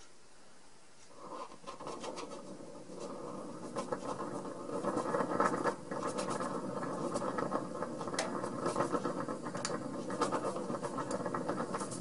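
Methanol flame in an empty Sterno can burning hard under air blown into it, a steady rushing that starts about a second in and slowly grows. Scattered crackles run through it as the can's paint and label burn.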